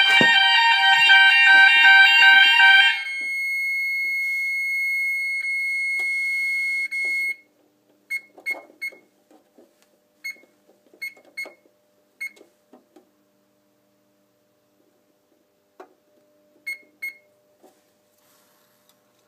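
Gent fire alarm sounders sounding a loud multi-tone alarm, which cuts off about three seconds in. A single steady high tone from the Xenex fire alarm control panel carries on for a few more seconds and stops. Then come short high beeps, singly and in pairs, as the panel's buttons are pressed.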